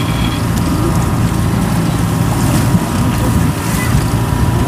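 Kubota DC70 combine harvester's diesel engine running steadily at idle.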